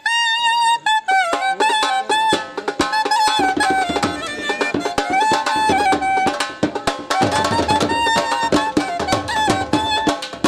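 Festive music with drums beating fast and dense under a high melody of long held, slightly wavering notes.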